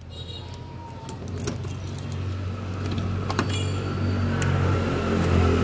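A few light clicks and jingles of keys as a wooden door is unlocked and pushed open, over a steady low rumble that grows louder.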